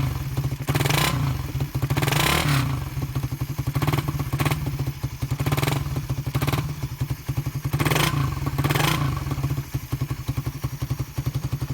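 Suzuki Raider 150 Fi's single-cylinder four-stroke engine idling with an even, steady beat, blipped on the throttle about six times in short quick revs.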